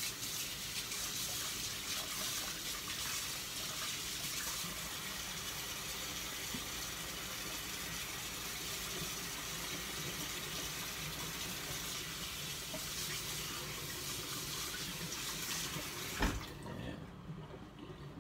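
Kitchen sink tap running steadily while hands are washed under it, then turned off with a knock about sixteen seconds in.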